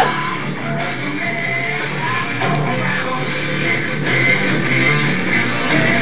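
Rock music with guitar playing steadily.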